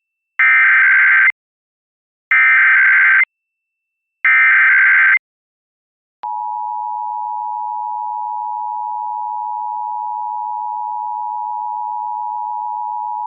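Emergency Alert System monthly test: three identical one-second bursts of the digital SAME header data tones, about two seconds apart. About six seconds in, the steady two-tone EAS attention signal starts and holds.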